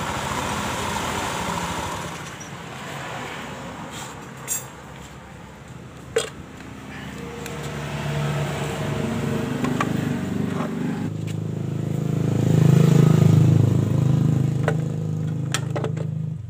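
Honda Spacy Helm-in scooter engine running with its CVT cover off and a newly fitted drive belt. It runs steadily at first, goes quieter with a few sharp metallic clicks, then builds to a louder low drone in the second half before dropping away at the end.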